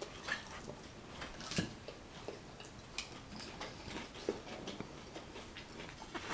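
Someone chewing crisp salad leaves: irregular soft crunches and small clicks.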